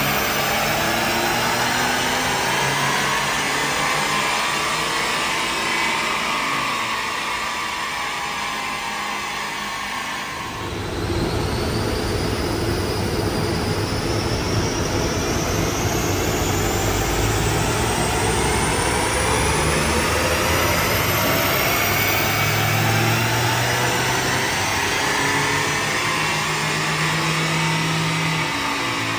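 Seat Ibiza 1.9 TDI PD130 diesel engine pulling hard on a rolling road dyno during a power run, with the car's drive wheels spinning the rollers. A thin whine climbs steadily in pitch as road speed builds, after a brief dip about ten seconds in.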